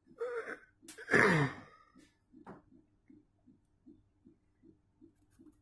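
A person's loud non-speech vocal outburst about a second in, starting sharply and falling in pitch, preceded by a shorter breathy sound. A faint regular ticking, about two and a half beats a second, runs underneath.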